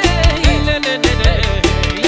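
Manele band playing an instrumental passage: an electronic keyboard lead winding through an ornamented, wavering melody over a steady beat.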